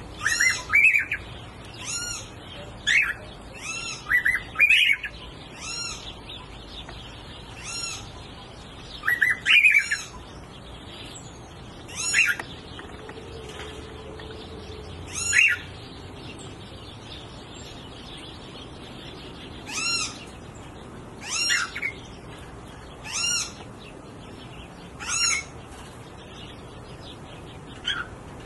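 Wilson's warbler giving short, nasal call notes, one every second or two, with a pause of a few seconds in the middle.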